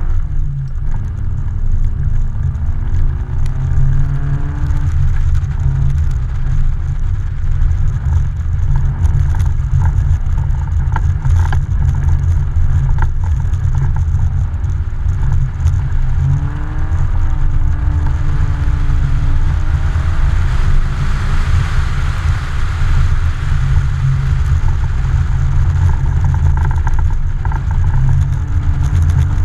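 Car engine revving up and down again and again as the car slides on lake ice, heard from outside the car body over a heavy low rumble. A rushing hiss rises and falls about twenty seconds in.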